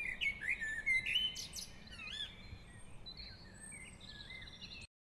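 Songbirds chirping and singing, several whistled calls and trills overlapping, cutting off abruptly near the end.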